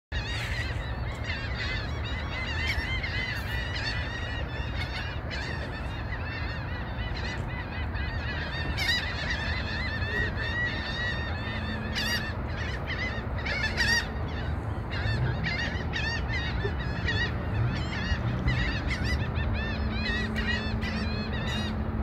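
A large flock of birds calling nonstop, many short, overlapping, squawking calls at once, over a steady low rumble.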